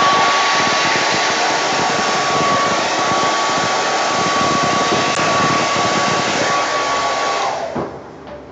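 Hand-held hair dryer blowing steadily, a loud rush of air with a steady whine, switched off near the end.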